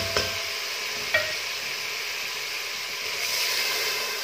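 Chicken and masala in hot oil sizzling steadily in a pressure cooker pot as water is poured in, with one light tap about a second in.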